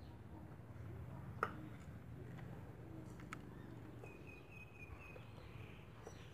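Cleaver chopping long beans on a round wooden chopping board: a few sharp knocks of the blade on the wood, the loudest about a second and a half in and another about two seconds later. A bird chirps in a quick series in the second half, over steady low outdoor background noise.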